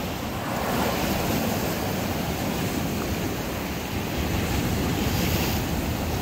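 Sea surf surging and washing against a rock ledge, a steady rushing of breaking water, with wind buffeting the microphone.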